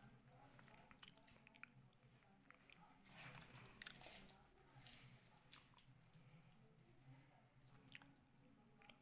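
Faint crackling and crunching of a roasted sesame-seed and jaggery mixture squeezed and pressed into balls by hand, with scattered small clicks, a little louder about three to four seconds in.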